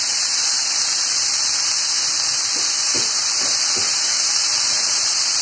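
Coriander leaves and stems frying in hot oil in a pan, giving a steady, loud hissing sizzle, with a few soft pops about three seconds in.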